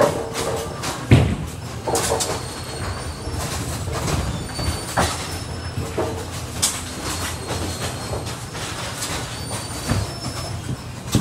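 Bowling alley din: a steady low rumble of rolling balls and running AMF 82-90XL pinspotter machinery, with scattered sharp clacks of pins and machinery from neighbouring lanes, the clearest about a second in and near five seconds.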